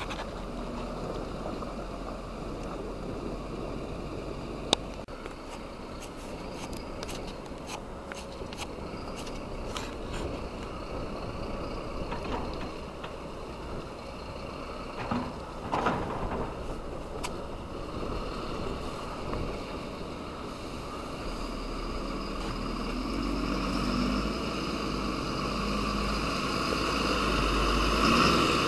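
Mercedes-Benz Zetros 6x6 truck's diesel engine running as the truck crawls through deep mud, growing louder over the last several seconds as it comes closer. A few sharp clicks and snaps stand out in the first third.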